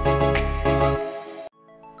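Background music with a bass line and a steady beat, cutting off suddenly about one and a half seconds in, after which a few faint held notes start.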